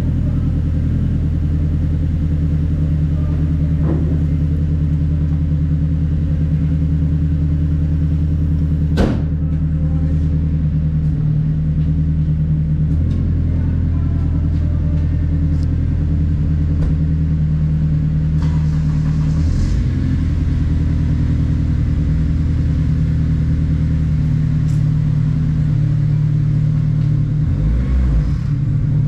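Car engine idling steadily close by, its note shifting a few times, with a single sharp knock about nine seconds in.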